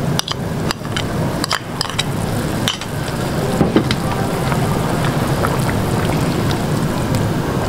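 A large pot of chicken-and-chickpea broth bubbling on the stove while a slotted spatula stirs potato chunks into it. There is a steady bubbling noise throughout, with a few sharp clicks in the first three seconds.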